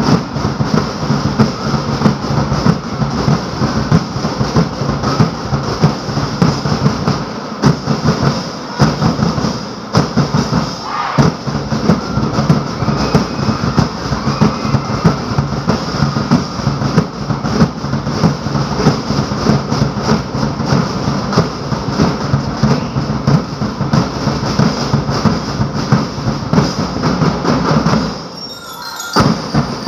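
Drums played at a steady, driving beat, loud throughout; it drops away briefly about 28 seconds in, then starts again.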